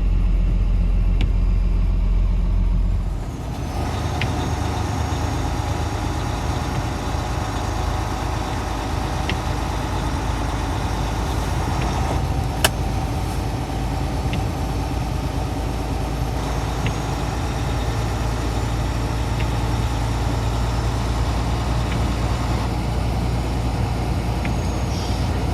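Motor vehicle running: a steady low engine hum for the first few seconds, then a noisier steady drone with a single sharp click about halfway through.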